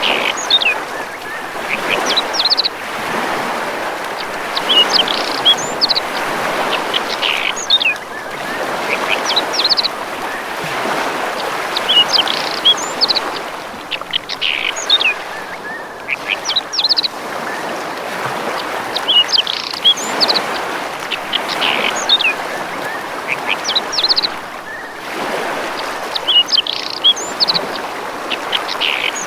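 Small birds chirping in short clusters of high notes, repeated every few seconds, over a steady rush of water that swells and eases.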